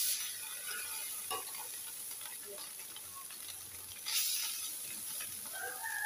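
Drained, parboiled basmati rice tipped from a slotted spoon into a steel pan with a little oil, hissing as it lands. A fresh surge of hiss comes about four seconds in, as a second scoop goes in, with light clicks of the spoon against the pan.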